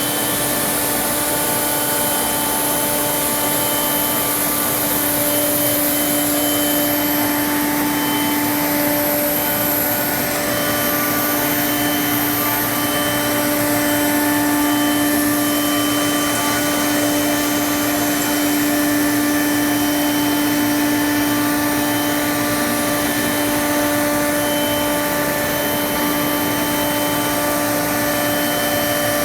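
CNC router milling aluminium: a steady spindle whine over a constant rushing noise, with several fainter tones coming and going as the cutter moves through the work.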